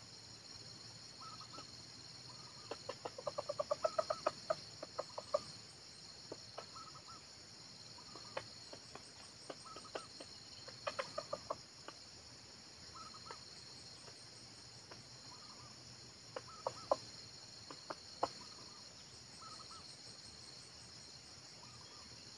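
Red junglefowl rooster clucking in several quick runs of short clucks, with a steady high-pitched insect drone behind.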